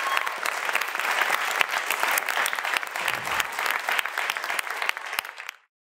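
Applause from a roomful of people, dense clapping that fades and then cuts off abruptly about five and a half seconds in.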